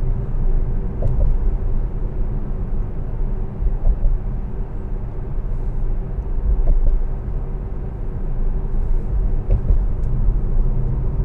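Steady low road and tyre rumble inside the cabin of a moving Tesla Model S electric car, with no engine note.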